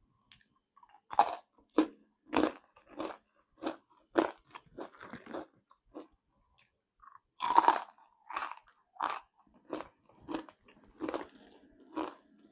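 Close-up crunching and chewing of crispy spicy basreng (fried meatball crisps), a crunch every half second or so, with a louder bite a little past the middle.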